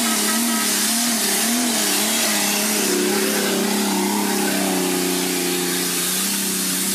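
Off-road 4x4's engine revving hard under load on a steep climb, its pitch wavering up and down repeatedly over the first few seconds and then held steadier, with a loud hiss over it.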